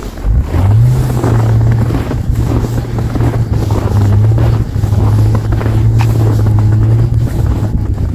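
A car engine revs up about half a second in and then holds at steady high revs for several seconds before dropping off near the end.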